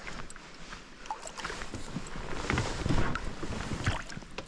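Water splashing and sloshing against an inflatable boat as the oar works, with a few knocks and thuds about three seconds in.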